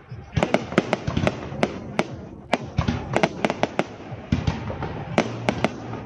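Fireworks display: aerial shells bursting in a rapid, irregular string of sharp bangs, several a second, over a continuous hiss and crackle.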